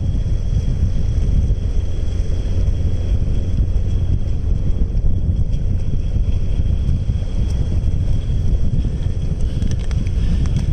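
Wind buffeting an outdoor microphone: a steady low rumble, with a few faint clicks near the end.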